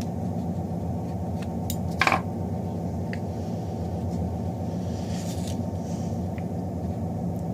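Scissors making a single sharp snip through a leathery ball python eggshell about two seconds in, with a few faint ticks, over a steady low hum.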